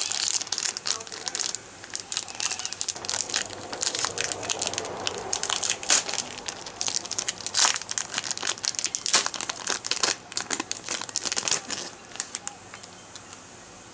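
Plastic wrapper of a trading-card booster pack being crinkled and torn open by hand: a dense run of sharp crackles that dies away near the end.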